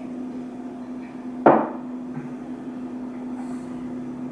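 A stemless drinking glass set down on the tabletop with a single sharp knock about a second and a half in, over a steady low room hum.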